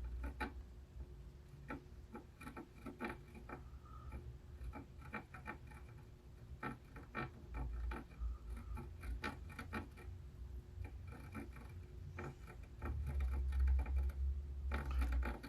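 Soft, irregular clicks and taps of hand soldering on a PS5's HDMI port pads, over a faint steady hum. A low rumble grows louder near the end.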